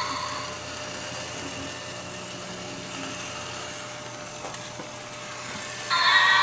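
Small battery-powered motor and gears inside a Yonggary action figure, a steady whirring. It dies away just after the start, then starts again abruptly near the end as the figure is handled.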